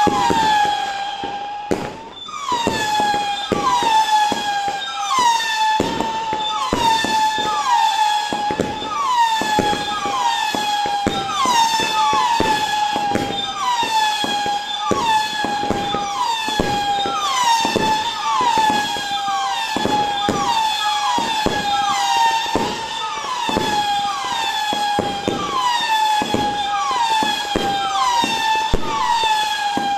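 A 100-shot 'howling wolf' firework cake firing shot after shot. Each shot gives a whistle that drops in pitch and then holds, like a howl, about one and a half a second, over a stream of pops and bangs from the bursts. There is a brief lull about two seconds in.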